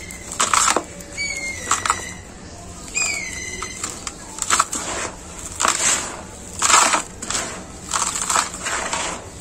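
Dry, gritty soil with small pebbles being squeezed and crumbled by gloved hands and spilling back into a tub, in repeated gritty rustling bursts. A short falling whistle sounds faintly twice, about one and three seconds in.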